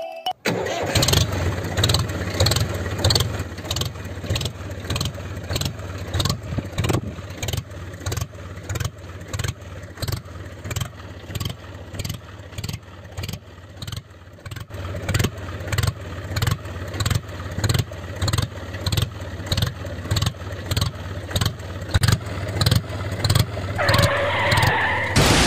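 Tractor engine running with a slow, even thump, about two beats a second. A higher tone joins in near the end.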